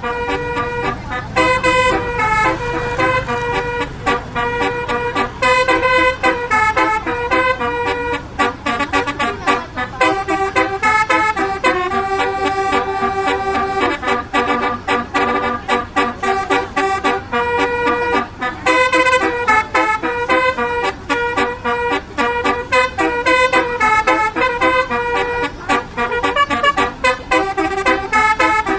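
A bus's 18-note basuri telolet horn, a multi-trumpet air horn, playing a song melody as a quick run of held horn notes that step from pitch to pitch.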